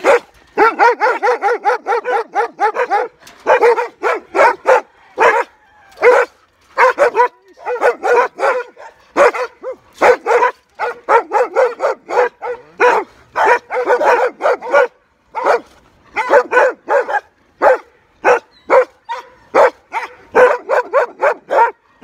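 Farm dogs barking excitedly in fast runs of short, sharp barks, several a second, with brief pauses between runs.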